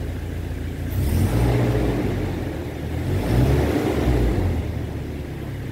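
Toyota Innova's petrol four-cylinder engine given two light throttle blips, one about a second in and another around three seconds, each rising from idle and settling back. The engine is in stock form, with no throttle add-on module plugged in.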